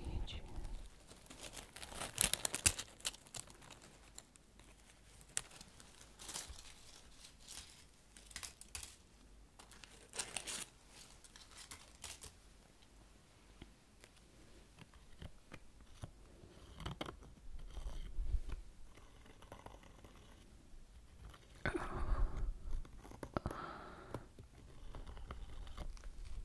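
Dry leaves crinkling and crunching between cloth-gloved fingers close to the microphone, in irregular bursts of crackle with quieter stretches between.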